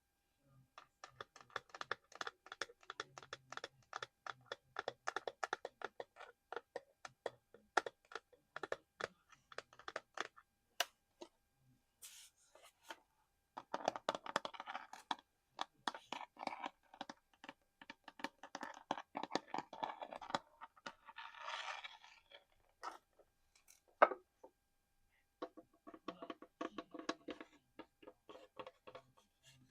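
ASMR fingertip and fingernail tapping on hard objects, fast runs of taps broken by short pauses. Two stretches of scratching and scraping come in the middle, and there is one sharp, louder tap a little before the last run of taps.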